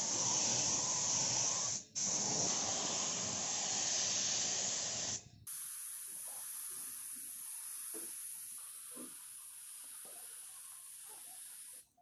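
Air-powered paint spray gun hissing steadily as it sprays paint, with a brief break a little under two seconds in. About five seconds in the hiss turns quieter and thinner, higher in pitch.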